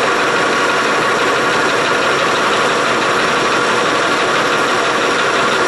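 Metal lathe running steadily, its chuck spinning while a cutting tool turns the end of a steel part.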